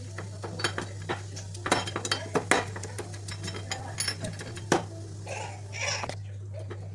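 Kitchenware clinking and knocking: a spoon and dishes tapped together in quick, irregular clicks. A steady low hum runs underneath.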